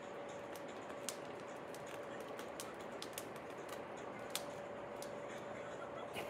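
Plastic deco mesh crinkling in light, irregular clicks and ticks as it is rolled and scrunched by hand, over a faint steady hum.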